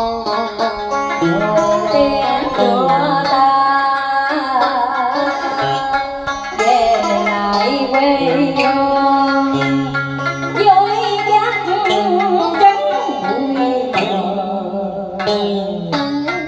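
Cải lương instrumental accompaniment: a scalloped-fret electric guitar and a plucked đàn sến play a continuous melody, with many of its notes wavering in pitch.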